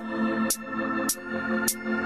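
Background music: sustained keyboard or synth chords with a short high tick about every 0.6 seconds, giving a steady beat.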